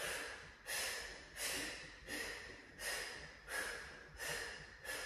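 A woman breathing out in short puffs, about eight in a row at an even pace of roughly three every two seconds, each one timed to a twist of her bicycle crunches.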